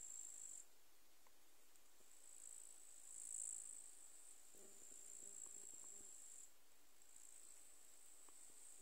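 Faint, high, steady trilling of insects in the undergrowth, over near silence. It breaks off about half a second in, resumes about two seconds in, and stops briefly again near the end.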